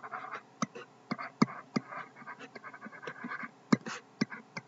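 Stylus handwriting on a tablet screen: a string of sharp tapping clicks with short scratchy pen strokes between them.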